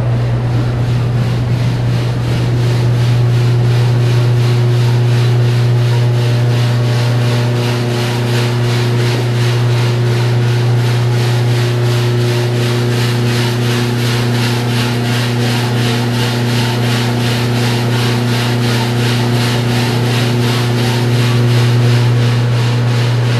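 Drum coffee roaster running: a loud, steady low hum from its motor and fan with a rapid, regular scraping swish as the drum turns.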